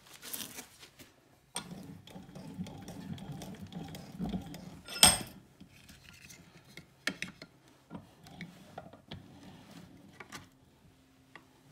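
Hand tools and small metal parts being handled: ratchety clicks and rattles of a trigger clamp being worked, with one sharp metallic clack about five seconds in that is the loudest sound.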